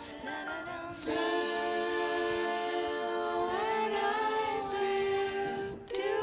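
Music of voices singing long held notes, without clear words, stepping and gliding between pitches; it swells about a second in and breaks off briefly near the end.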